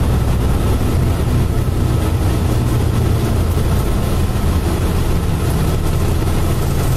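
Hakodate city tram running along its street track, heard from inside the car: a steady low rumble.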